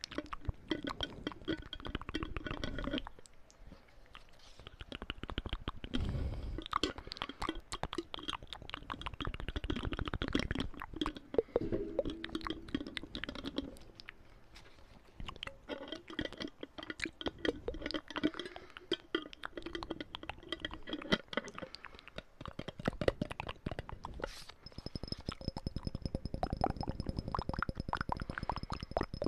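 Close-miked ASMR mouth sounds: rapid, dense wet clicks, pops and smacks, dipping quieter briefly about four seconds in and again around fourteen seconds.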